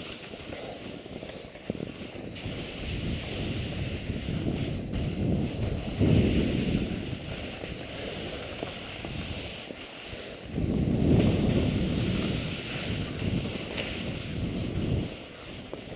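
Skis sliding and scraping over snow on a fast descent, a rushing hiss that swells twice, about six seconds in and again for several seconds from about ten seconds in, mixed with wind on the microphone.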